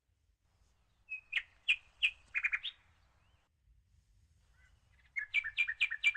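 A songbird singing two phrases of quick, repeated chirps, the first about a second in and the second near the end.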